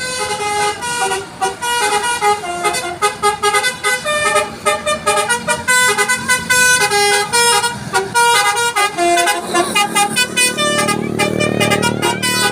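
Tour bus 'telolet basuri' musical horn playing a fast melody of short, stepped horn notes. A low rumble swells underneath near the end.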